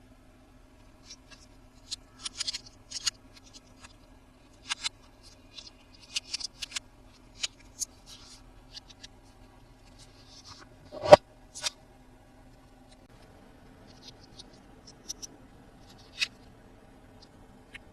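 Close-miked handling of toy packaging: scattered crinkles, small clicks and scrapes, with one louder knock about eleven seconds in.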